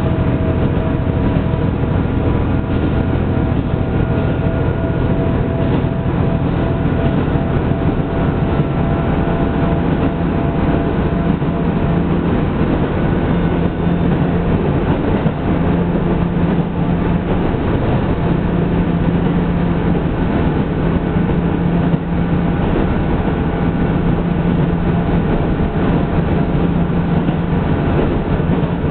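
Diesel railcar running along the line, heard from inside: a steady engine drone over rumbling wheel and rail noise. A higher tone fades out in the first dozen seconds.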